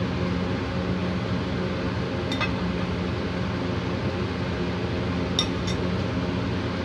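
Steady motor hum, like a kitchen fan running, with a few faint light clinks: one about two and a half seconds in and two close together near five and a half seconds.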